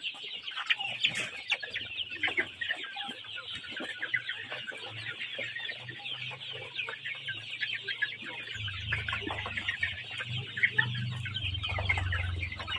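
A large flock of young chickens clucking and calling all at once, a dense, continuous chatter of many overlapping high calls. A low rumble joins in during the second half.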